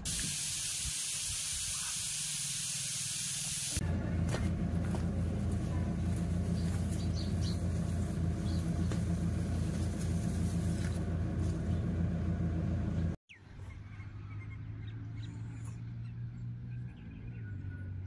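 A steady hiss for about four seconds, then a motor running with a steady low hum. The hum cuts out abruptly and resumes quieter.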